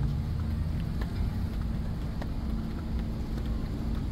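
Steady low background rumble with a faint steady hum, and a few faint ticks over it.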